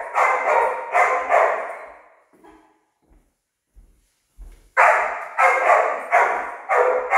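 A dog barking repeatedly: a run of about five barks, a pause of nearly three seconds, then another run of about five.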